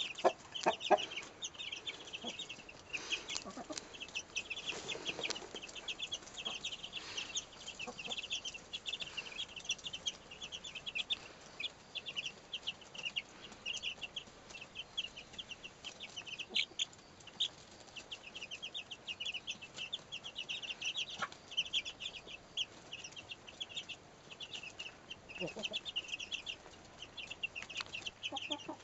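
Two-and-a-half-week-old chicks peeping constantly in quick, high cheeps. A broody hen clucks low a few times among them, mostly in the first few seconds and again near the end.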